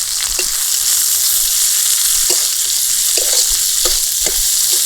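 Chopped onion sizzling in hot oil in a kadai, a steady loud hiss, with a few short knocks of a spatula stirring against the pan.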